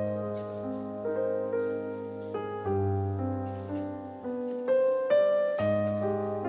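Background piano music: sustained chords with a bass line underneath, a new note or chord every half second or so.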